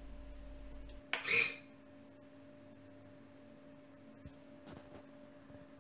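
Hobby servos in an RC lowrider's suspension whirring briefly, about a second in, as they shift the car's body on its turnbuckles, over a faint steady hum.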